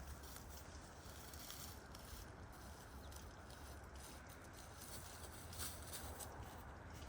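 Chickens foraging on the ground: faint rustling and scattered light ticks of scratching and pecking, over a steady low rumble.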